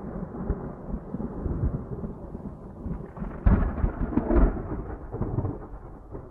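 Thunder sound effect: a low rolling rumble with its loudest cracks about three and a half seconds in, dying away towards the end.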